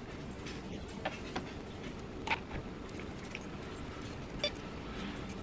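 Quiet room tone with a steady low hum, broken by a few faint, scattered clicks and taps.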